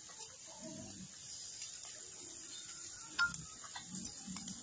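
Meat sizzling faintly on a wire grill over charcoal, with a few light clicks of chopsticks against the grate and meat, the sharpest about three seconds in.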